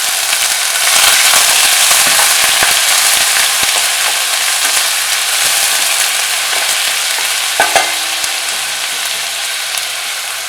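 Ginger garlic paste sizzling in hot oil and ghee with curry leaves, being stirred in the pan, with scattered clicks of the utensil against it. The sizzle is strongest in the first few seconds, and there is one louder clink against the pan about three quarters of the way through.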